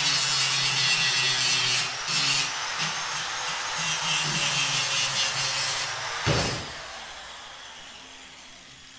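Angle grinder with a twisted-knot wire wheel scrubbing paint off a steel square tube: a loud, harsh hiss over a steady motor hum. About six seconds in there is a knock, and the sound fades away as the grinder winds down.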